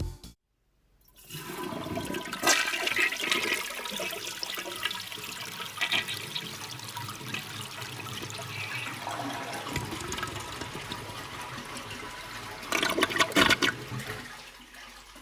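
1982 Kilgore Argus commercial flushometer-style toilet flushing, run on water from a tank through an adapter instead of line pressure: a steady rush of water through the bowl, surging loudest near the end before fading away.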